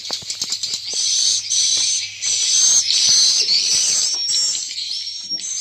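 Swiftlets twittering: a dense, continuous high chatter of overlapping chirps and short whistled notes, laced with rapid clicking.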